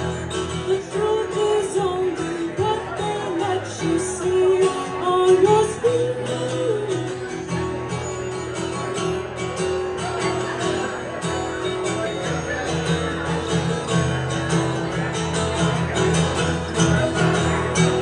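Live acoustic guitar with a woman singing into a microphone, her melody rising and falling most clearly in the first half.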